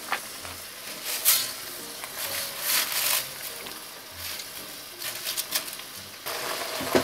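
Dry spaghetti being stirred and pushed down into simmering broth in a cast-iron pot with a spoon: short scraping, rustling swishes over a steady bubbling hiss, which grows louder near the end.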